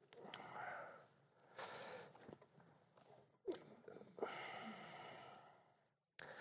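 Near silence, broken by a few faint, soft rustling noises in short spells, with a single click about three and a half seconds in.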